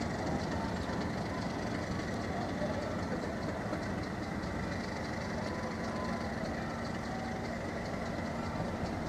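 English Electric diesel locomotive's engine running steadily at low power as the locomotive draws its coaches slowly into the platform.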